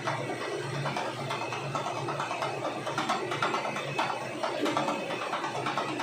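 Milling machine face-milling the top of a metal mold plate: steady cutting and machine noise with a low pulse about twice a second, as the cutter skims the face down.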